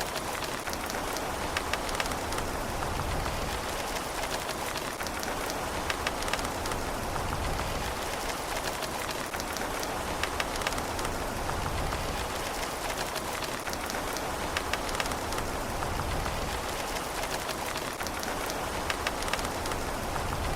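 Steady rain falling on a surface, with many distinct drops pattering in a dense hiss and no thunder.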